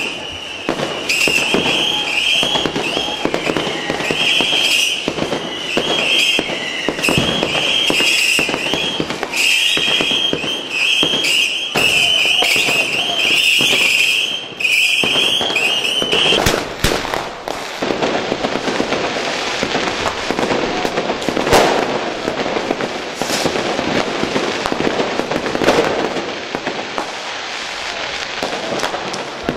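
Many New Year's fireworks going off at once: a dense run of bangs and crackles. A high pulsing tone sounds over them for the first half and stops about halfway through.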